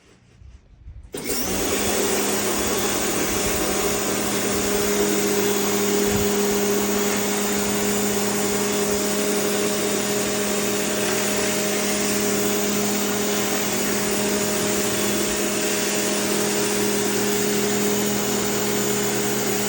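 Westinghouse ePX3500 electric pressure washer starting about a second in, then running steadily: a constant motor-and-pump hum over a broad hiss of spray.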